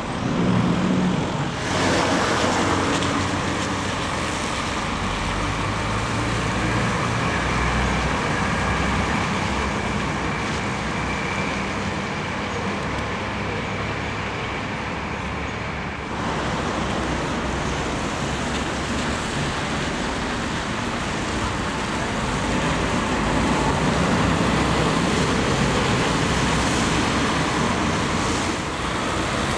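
Town street traffic on wet roads: buses and cars passing and pulling away, with engine noise and a steady hiss of tyres on the wet surface.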